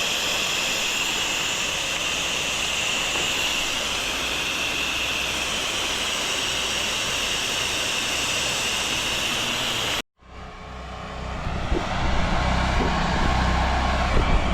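Pressure washer rinsing a house, a steady hiss of the high-pressure water spray. About ten seconds in it cuts off abruptly and a deeper, steady machine sound with a few knocks takes over.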